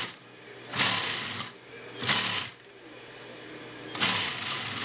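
Industrial post-bed sewing machine stitching binding along the edge of a leather bag. It runs in three short bursts, each about half a second to a second long, with pauses between while the work is repositioned.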